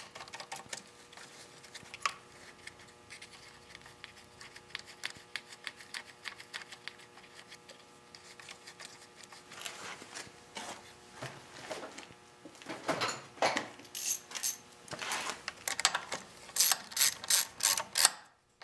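Small socket ratchet clicking in short strokes as it runs down the nuts that hold the air filter housing and carburetor on a Honda GX31 engine. Faint clicks of the nuts and parts being handled come first; the ratcheting is loudest over the last few seconds.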